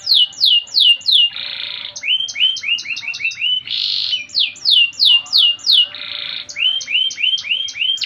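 Domestic canary singing: runs of clear sliding notes repeated three to five times a second, each run on a different note, broken three times by short harsh buzzing rolls.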